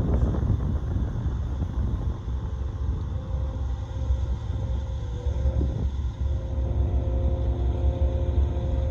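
Union Pacific gravel train rolling past, a steady deep rumble, with a faint steady whine joining about halfway through.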